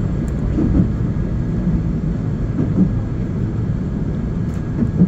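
Steady low rumble of an electric commuter train running along the track, heard from inside the passenger car.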